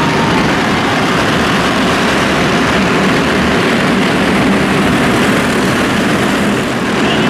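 A full field of arena stock cars running together in a pack, a loud, steady blend of many engines inside an indoor arena.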